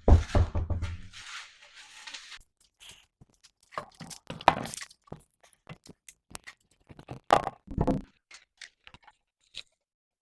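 Clunks, scrapes and knocks of a car wheel being handled and fitted back on: a heavy thump at the start, a scraping noise for a couple of seconds, then scattered knocks and clicks, with louder clunks about halfway and near the end.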